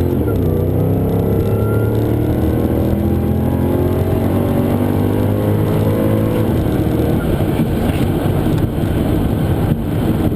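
Supercharged 6-litre V8 pulling away under throttle in first gear, its pitch rising slowly for about six seconds. It then changes to a rougher, noisier sound with no clear pitch while the rear tyres are still spinning a bit.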